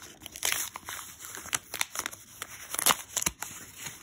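Stiff black paper envelope being torn open by hand: quick, irregular crinkling and ripping of the paper, loudest about three quarters of the way through.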